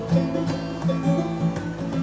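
Acoustic guitar strummed and picked in an instrumental break, with a banjo picking along.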